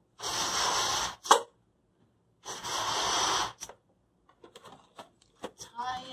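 Two long breaths blown hard into a latex balloon, each about a second long with a quick gasp between them, inflating it. After that come small rubbery squeaks and clicks as the balloon's neck is handled and knotted.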